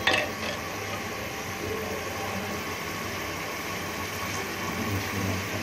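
Steady hiss of a gas stove burner and masala frying in oil in an aluminium pot, with a brief louder noise right at the start.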